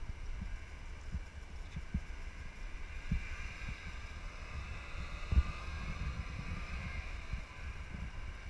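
Wind buffeting the microphone with a steady low rumble and scattered bumps, the loudest about five seconds in, over the faint, distant drone of snowmobile engines that swells a little midway through.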